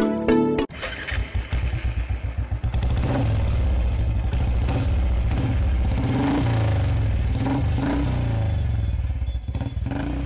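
Motorcycle engine running, first at idle with a quick, uneven low beat, then louder and steady, with several short blips of the throttle that rise and fall in pitch.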